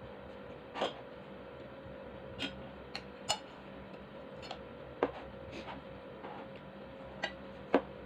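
Eating and table noises: about eight short, sharp clicks and taps at uneven intervals as food and plates are handled, the loudest near the end, over a faint steady hum.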